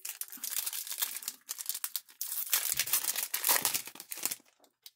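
Foil wrapper of a Pokémon Fusion Strike booster pack crinkling as it is torn open and the cards are pulled out, the crackling louder in the second half and stopping shortly before the end.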